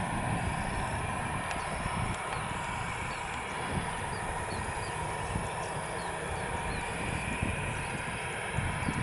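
Airbus A320-216's CFM56 jet engines running at taxi power: a steady whine over a low rumble.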